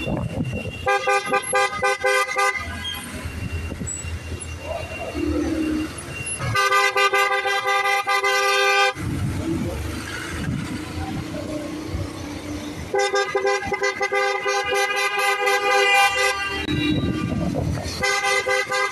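A vehicle horn honking in four long bursts of two to three seconds each, over rumbling road and wind noise.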